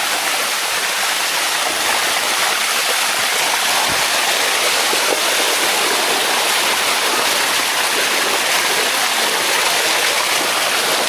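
Water of the Bua Tong waterfall flowing steadily over its limestone cascade close by, with one soft knock about four seconds in.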